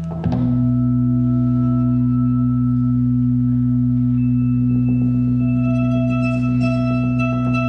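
Synthesized electronic drone of sustained low tones, generated in Max and played by squeezing and moving the Sponge controllers. The chord shifts and gets louder about a quarter-second in. A high steady tone joins about four seconds in, and a few brief shimmering swishes come near the end.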